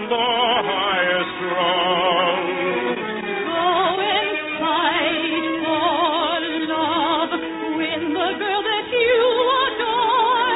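A soprano singing an operetta song with wide vibrato over an orchestra, heard in the narrow, dull sound of an old radio broadcast recording.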